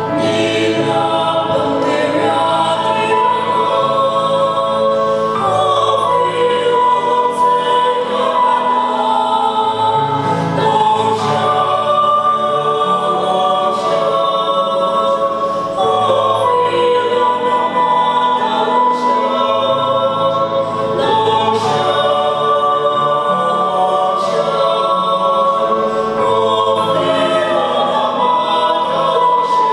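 Small mixed choir of men's and women's voices singing a hymn in harmony with long held notes, accompanied by a keyboard playing sustained chords.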